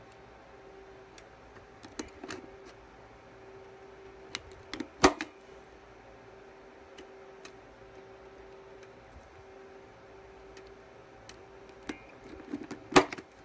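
Spring-loaded impact punch-down tool snapping Cat 5 wires onto the clips of a 66 telephone punch-down block: two loud sharp snaps about eight seconds apart, each with a few lighter clicks just before as the tool is set on the clip. A faint steady hum runs underneath.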